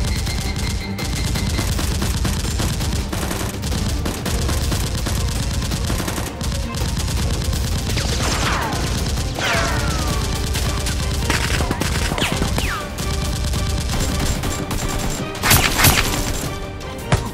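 Gunfire sound effects, a rapid run of shots, over background music with a steady low beat. There are a few falling whistles about halfway through and two loud sharp cracks near the end.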